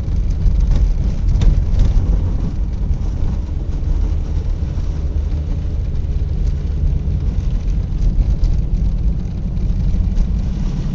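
Steady low rumble of a car's engine and tyres on a snow-covered highway, heard from inside the cabin.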